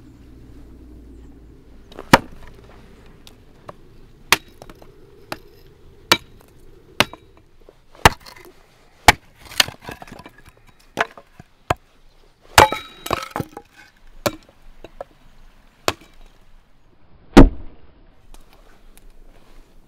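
Hatchet chopping and splitting firewood on a wooden chopping block: a series of sharp, irregular chops about once a second, some with a short splintering crackle, the loudest one near the end.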